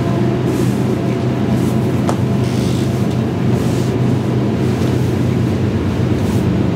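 A fan running steadily with a low hum, and heavy cotton hoodie fabric rustling as it is pulled on over the head.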